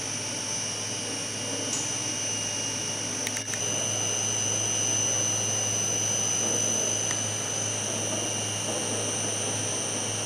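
A machine running steadily, with a constant low hum and a high whine, and a brief click about three and a half seconds in.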